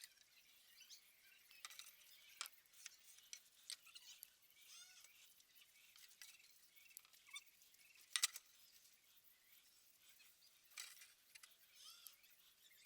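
Near silence with faint, scattered small clicks and ticks; the loudest brief cluster of clicks comes about eight seconds in.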